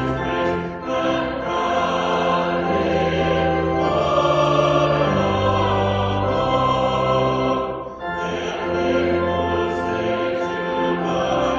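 Church choir singing a hymn with pipe organ accompaniment, in long held chords. The sound breaks off briefly about eight seconds in, then the singing resumes.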